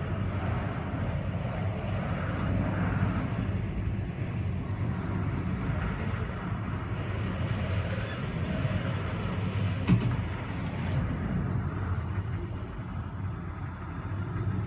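Strong typhoon wind blowing hard across the microphone as a steady low rumble, with a single sharp knock about ten seconds in.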